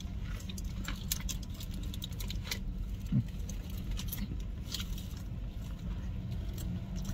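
Chewing and mouth sounds with light crinkling of a sandwich wrapper, scattered small clicks over a steady low hum. A brief low hum of a voice, like an "mm", about three seconds in.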